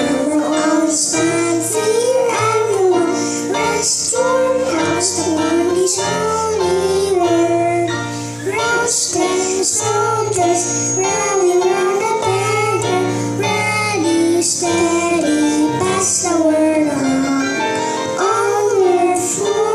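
Two children singing a hymn into microphones over an instrumental backing track with a steady bass line.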